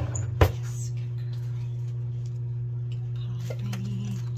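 A kitchen cabinet drawer knocking shut once, about half a second in, pushed closed by a dog's nose, over a steady low hum.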